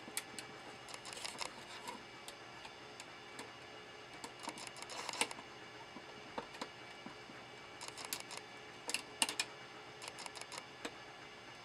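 Light clicks and rustles of hands working on a plastic instrument cluster and its test wires, coming in small scattered clusters, the sharpest about nine seconds in.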